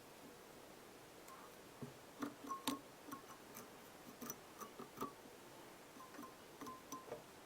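Faint, irregular small clicks and ticks from handling fly-tying tools and materials at the vise. Some ticks have a brief ringing note.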